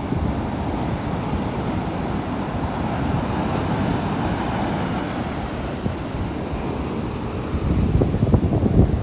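Sea waves washing in, with wind buffeting the microphone. A wave swells in the middle, and the wind rumble grows louder near the end.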